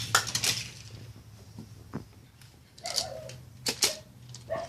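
Die-cast Hot Wheels cars running down plastic track, with scattered clicks and clacks, the sharpest about three to four seconds in.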